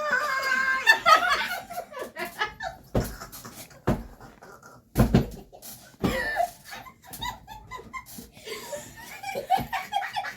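A group of people laughing in bursts, then four dull thumps about a second apart, which are pillow hits on a player who laughed.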